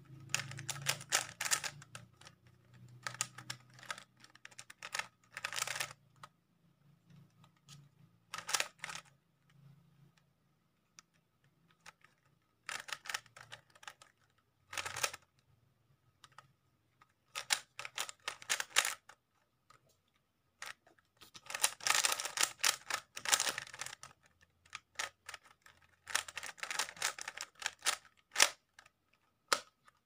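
Plastic 3x3 Rubik's cube being turned by hand: quick runs of clicking as the layers snap round, in bursts of a second or two with short pauses between.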